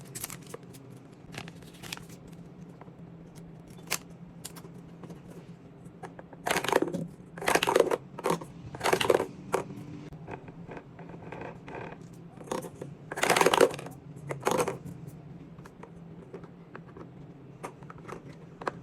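Toy packaging being handled and opened: scattered small clicks and several short bursts of scraping or tearing, the loudest bunched around the middle.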